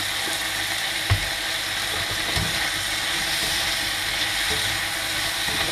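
Pangasius fish pieces and celery sizzling in a frying pan in a sauce, stirred with a spatula; two knocks of the spatula against the pan about one and two and a half seconds in.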